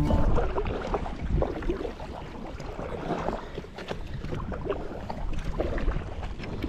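Wind buffeting the microphone on a kayak out on the river, with a low rumble and water splashing and lapping in small irregular bursts.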